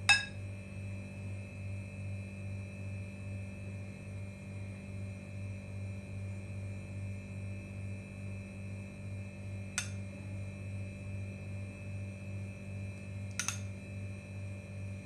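Steady low electrical hum with a gentle throb, and three light clicks of a metal spoon against glass dishware: one at the start and two near the end.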